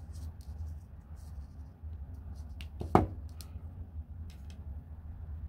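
Faint clicks of craft wire and small jewelry pliers being handled, then about three seconds in a single sharp clack with a brief ring as the metal pliers are set down on the table, over a steady low hum.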